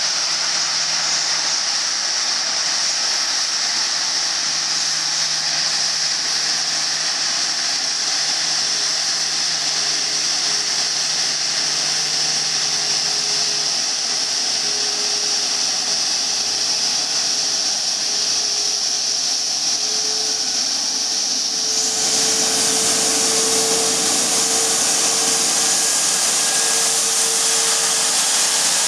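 Airbus A340-600's four Rolls-Royce Trent 500 jet engines running at low power, a steady high hiss and whine with a faint low hum. About three-quarters of the way through the sound jumps and becomes brighter and a little louder.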